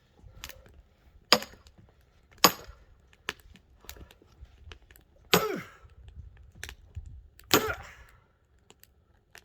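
A very hard firewood log being chopped: four loud, sharp blows at uneven spacing, with lighter knocks and cracking of the wood between them.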